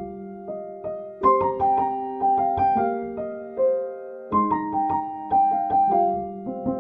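Solo piano playing a slow melody over held chords, each note struck and left to ring out.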